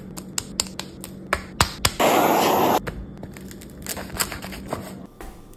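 Sandwich being assembled and cut on a wooden board: a run of short taps and clicks as fillings land, a loud crunchy rasp of just under a second about two seconds in, then light crackling of the bread crust as a chef's knife presses down through the roll.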